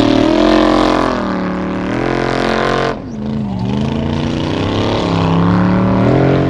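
Formula Offroad buggy's engine revving hard on a steep gravel hill climb, its pitch rising and falling with the throttle over a hiss of spraying gravel. The sound breaks off sharply about three seconds in, then the revs climb again.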